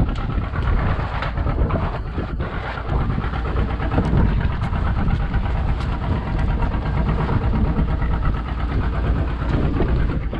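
A boat's engine running steadily, a low rumble that does not change.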